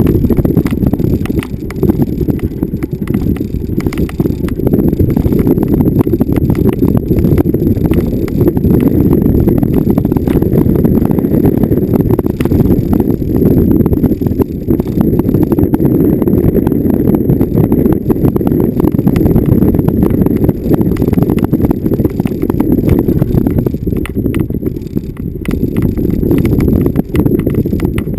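Vehicle jolting over rough off-road ground: a continuous low rumble with rapid rattles and knocks throughout.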